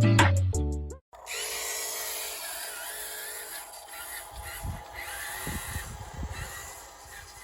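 Intro music ends about a second in. It gives way to the steady whir and wavering whine of a radio-controlled construction model's small electric motors, with a few low knocks in the second half.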